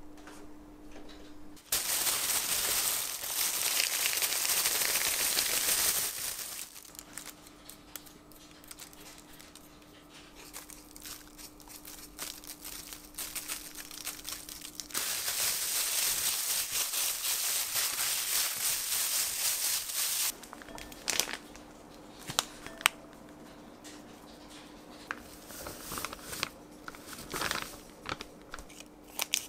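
Plastic bag crinkling and rustling in two loud stretches of a few seconds each, with quieter kitchen handling noises and scattered light clicks and taps in between and near the end, over a faint steady hum.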